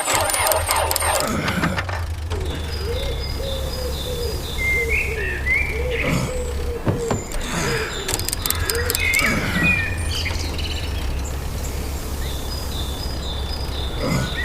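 A car engine failing to start: a steady low rumble with several falling-pitch whines every few seconds. Birds chirp over it.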